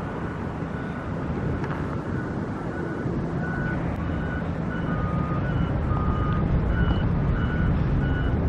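Heavy construction machinery running with a steady low engine rumble that grows slightly louder, while a reversing alarm beeps at regular intervals.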